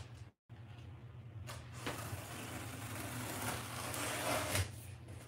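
Knife slicing through the packing tape along the top of a cardboard box: a scratchy rasp of about three seconds, with a few sharp clicks.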